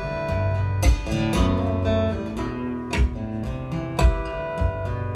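Solo steel-string acoustic guitar played fingerstyle, ringing melody notes over a low bass, with a sharp percussive knock about once a second.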